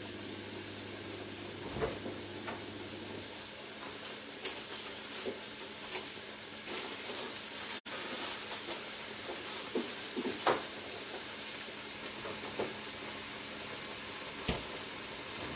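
Food sizzling steadily in a frying pan on the stove, with a few light clicks scattered through.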